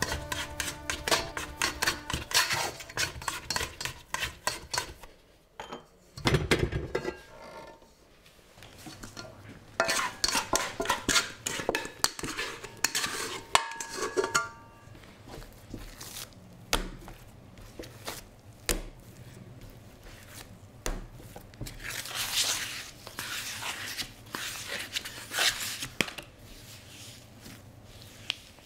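Stainless-steel stand-mixer bowl clinking and rattling in quick runs of ringing metal knocks as dough is scraped from it and the bowl is handled. Later, softer handling as the dough is turned out and folded by hand on a marble board.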